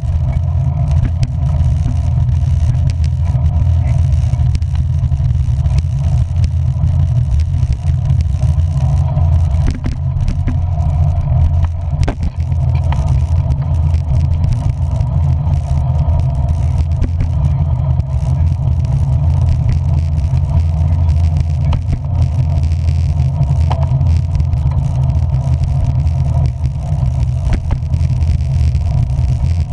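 Steady low rumble of a moving vehicle, with scattered short sharp ticks.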